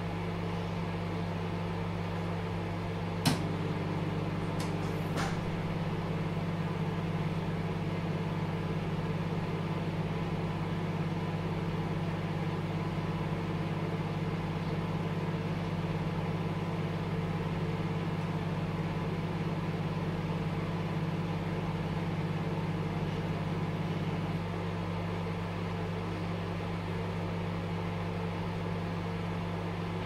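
Dial-controlled microwave oven running with a steady hum. About three seconds in there is a sharp click, and the hum grows louder and fuller, with a couple of faint ticks just after. It drops back to the plainer hum some twenty seconds later.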